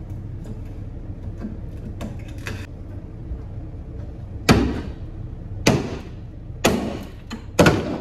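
Claw hammer striking wooden wall paneling, four loud blows about a second apart in the second half after a few lighter knocks, as the paneling is being broken off the wall.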